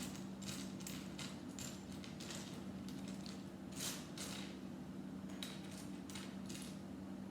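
Small plastic Lego pieces being sorted by hand, with irregular light clicks and rustles, over a steady low hum.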